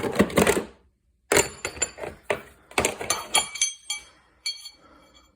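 Metal socket extension bars from a Capri wobble extension set being handled, clinking against each other and their case. There are a series of sharp clinks with short metallic ringing, thinning out and fading near the end.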